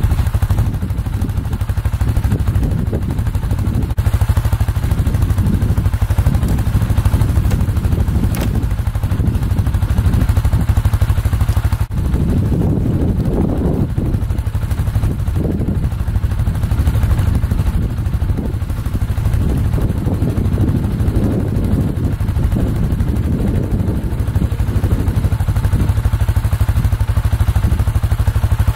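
Strong wind buffeting the microphone: a heavy, steady low rumble with irregular gusts, stronger near the middle.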